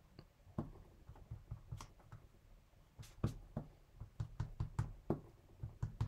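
Irregular light taps and clicks of a watercolour pencil working the waterfalls on semi-gloss card stock laid on the desk, a dozen or more short knocks at uneven intervals.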